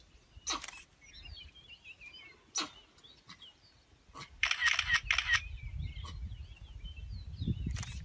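Camera shutters clicking: single shots about half a second in and again near two and a half seconds, a quick burst of several clicks a little before five seconds, and one more at the end. Small birds chirp throughout, and a low rumble comes in about halfway.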